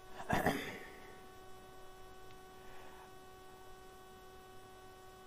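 Steady electrical hum from the recording setup, made of a few fixed tones, with a short soft noise about half a second in.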